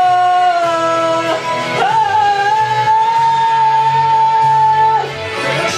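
A Taiwanese Hokkien pop song: a singer holds long notes, one of them for about three seconds, over instrumental backing.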